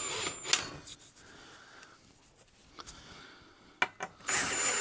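Ryobi 18V cordless drill driving a crib bolt. It runs with a thin high whine and stops with a click about half a second in. After a quieter stretch with a couple of knocks, it runs again near the end.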